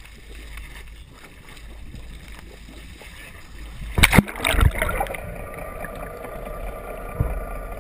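Wind and a boat's low engine rumble over open water, then loud splashing about four seconds in as the camera goes under the sea surface. After that the sound turns dull and muffled: bubbles rushing and a steady hum, the boat's engine heard through the water.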